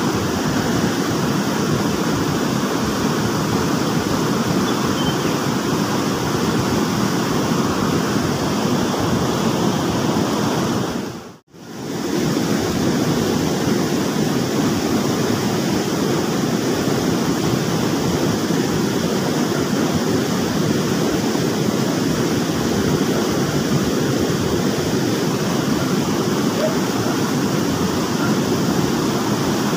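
Fast-flowing stream water rushing steadily, cutting out briefly about eleven seconds in.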